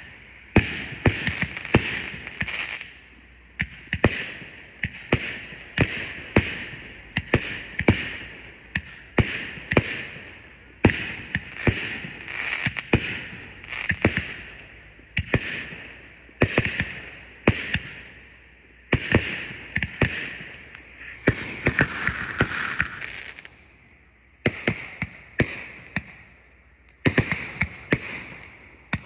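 Aerial fireworks firing in rapid succession: a steady train of sharp bangs, about two a second, with a hiss between them. The bangs thin out for a few seconds near the end, then pick up again.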